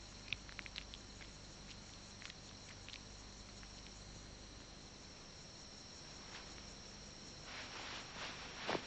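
Ghost bat moving: faint, sparse sharp clicks over a steady hiss, then a soft rustling swell with a few louder clicks near the end as it spreads its wings.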